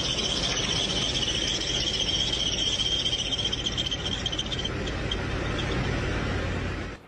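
Power tool cutting or grinding hard material: a steady rasping noise with a high whine that fades out about four and a half seconds in, cutting off abruptly near the end.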